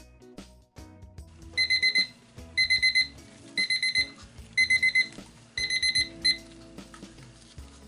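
Digital kitchen timer beeping at the end of its countdown, signalling that the 5-minute resin mix is done: five bursts of quick high beeps about a second apart, the last burst cut short when the timer is stopped.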